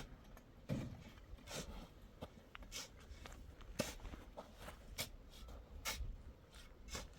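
Irregular light knocks and scrapes, roughly one a second, as of objects being handled or someone moving about at work.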